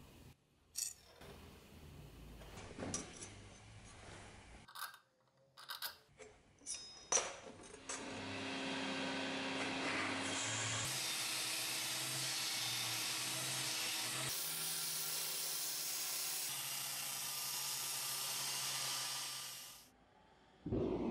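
Small bench belt grinder running steadily for most of the stretch, a loud even grinding noise with a few constant tones, fading out near the end. Before it starts there are a few scattered sharp metal taps and clicks.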